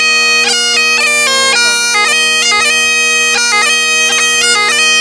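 Great Highland bagpipe playing a tune: the steady drone runs under the chanter's melody, which moves from note to note with quick grace notes between them.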